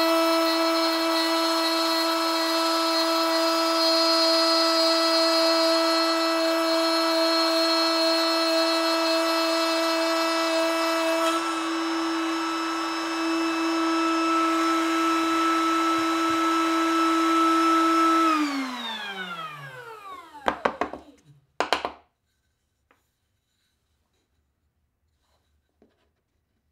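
Trim router running at full speed in a router table, a steady high whine while a wooden workpiece is pushed across the bit on a push-block sled, cutting a slot. About two-thirds through it is switched off and winds down in a falling whine, followed by a few knocks and then near silence.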